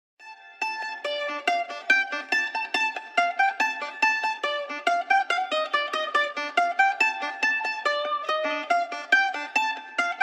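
Background music: a rapid plucked-string melody, mandolin-like, starting after a brief silence at the beginning.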